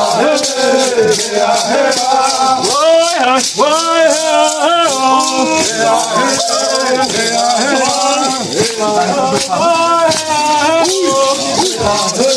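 Singing voices in a chant-like melody, accompanied by a maracá rattle shaken continuously in rhythm.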